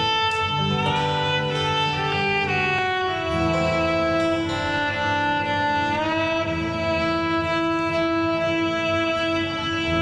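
Instrumental background music of long held melodic notes, sliding up into a new pitch about a second in and again a little past the middle.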